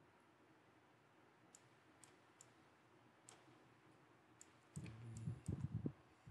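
Faint, scattered clicks from the computer input being used to hand-write on screen. About a second and a half before the end comes a brief, louder low rumble with a few thuds.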